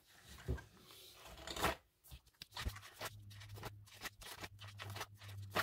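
Paper pages of a disc-bound journal being flipped and handled: soft, irregular rustles and light ticks of cardstock. A faint low hum sets in about halfway through.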